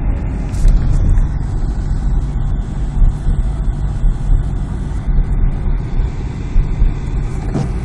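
Car driving on a snowy road: a steady low rumble of engine and road noise with small uneven bumps in loudness.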